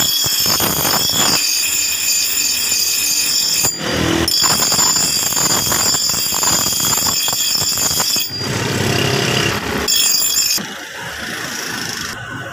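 Steel being worked in a blacksmith's shop for axe making: harsh grinding with high ringing tones and rapid knocking, changing abruptly a few times.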